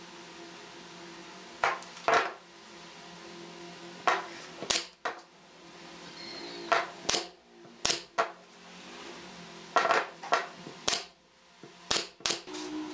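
Short, sharp wooden knocks and clicks, about a dozen, mostly in close pairs, as pine slats are set and tapped into a glued panel frame.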